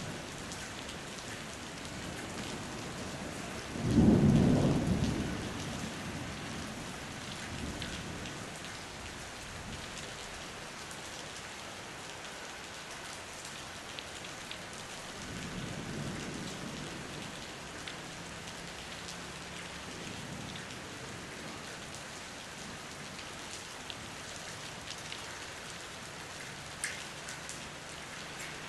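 Steady rain falling hard onto the street. About four seconds in comes a sudden loud clap of thunder that rumbles away over a couple of seconds, and a softer rumble of thunder follows near the middle.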